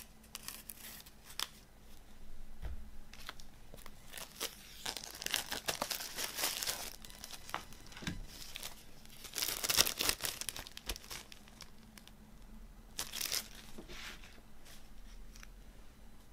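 Clear plastic shrink wrap on a CD being slit with a knife, then peeled off and crumpled, crackling and crinkling in several irregular bursts; the loudest is about ten seconds in.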